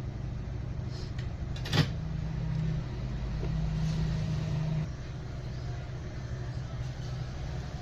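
Steady low electrical hum with a single sharp click about two seconds in. A slightly higher hum joins for about three seconds after the click.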